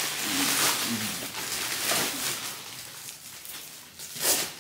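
Plastic mailers and packages rustling and being handled as they are packed into a postal sack, with a brief low vocal sound near the start.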